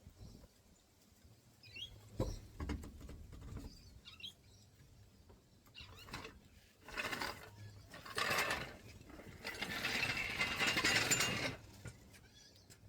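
Metal clanks, ratcheting and scraping from a car jack and jack stands being worked under a car. There are several short bursts, and a longer, louder scrape about ten seconds in.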